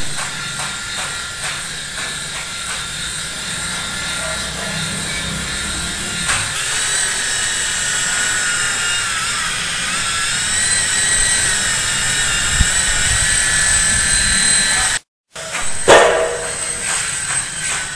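Small coaxial-rotor toy RC helicopter, its electric motors and twin rotors whining steadily in flight, the pitch wavering up and down with the throttle. The whine breaks off abruptly about three-quarters of the way through, and a brief louder noise follows.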